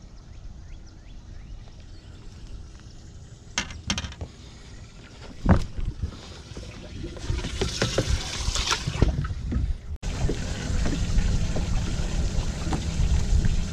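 Scattered knocks and a thump of handling on a boat's deck. About two seconds of water splashing and trickling from around the seventh second. After an abrupt change near the tenth second comes a steady low rush of wind and water.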